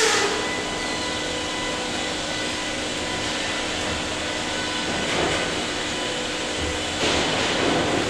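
Sawmill machinery running: a combination multisaw board and gang edger and its powered roller conveyors, a steady industrial din with a constant machine hum. Louder rushes of noise come a little after five seconds and again from about seven seconds in, as a board is fed into the edger's saws.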